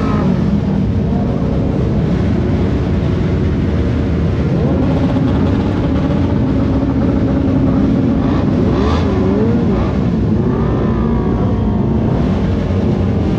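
Motorcycle engines of a large group of sport bikes running together, with engines revved up and down as riders blip their throttles. An engine holds a steady note for a few seconds in the middle, then its pitch rises and falls a couple of times.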